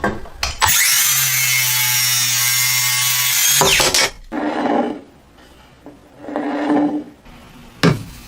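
A power tool working wood: one long run of about three seconds, then two shorter bursts.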